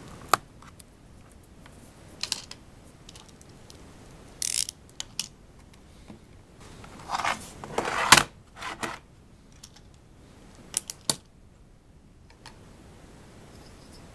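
Handling of an ELECOM compact plastic keyboard: scattered clicks and short scrapes as it is handled and turned over, with a louder stretch of rubbing and knocking about seven to eight seconds in and a pair of sharp clicks near eleven seconds.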